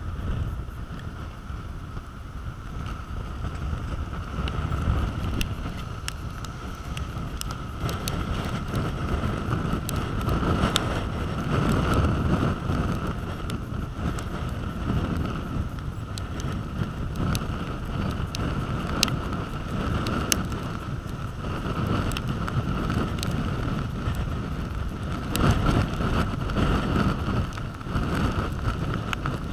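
Storm wind gusting hard and buffeting the microphone, over the steady noise of storm surf breaking on a sandy beach. The rumble swells and eases with the gusts, with scattered faint ticks.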